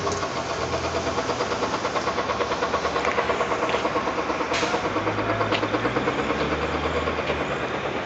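A heavy engine running at idle with a steady, rapid throb.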